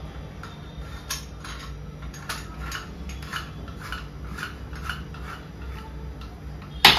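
Hand-held metal chakli press being screwed shut: short metal-on-metal clicks and scrapes come a few times a second as the top is turned. There is a louder metal clatter near the end.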